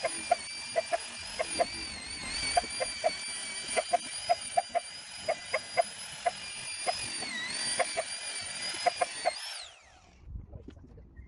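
Electric drill driving a headlight-restoration pad: a steady motor whine that wavers a little with speed, then winds down with a falling pitch about nine and a half seconds in. Short, sharp clicks come at irregular intervals throughout.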